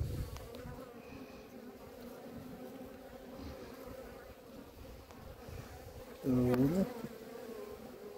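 A mass of honey bees humming steadily over an opened hive as its frames are lifted out; the beekeeper finds this colony a little aggressive. About six seconds in, a louder half-second sound dips and then rises in pitch.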